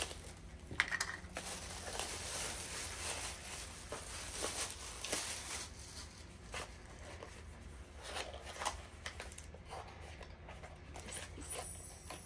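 Packaging being torn and rustled open by hand: an irregular run of crinkling and ripping noises.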